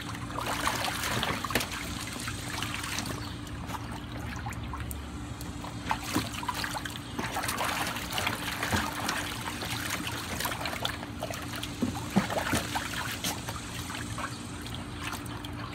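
A dog's paws splashing and sloshing water in a shallow plastic kiddie pool as it steps and paws about, with many small splashes one after another.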